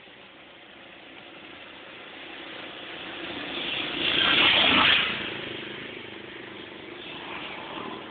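A three-wheeled auto-rickshaw's small engine driving past close by: it grows louder, is loudest about four to five seconds in, then fades away. A smaller swell of passing traffic follows near the end.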